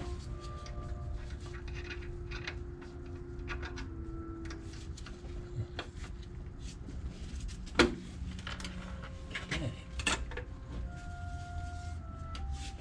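Hand work on a Rolls-Royce Phantom I's clutch and release mechanism: scattered light metallic clicks and knocks, the sharpest about eight seconds in and two more around ten seconds, over a steady low hum.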